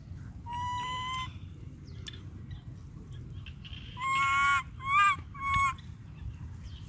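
Monkey calling: four clear, high cries, one about half a second in and three in quick succession about four seconds in, the middle one of these the loudest.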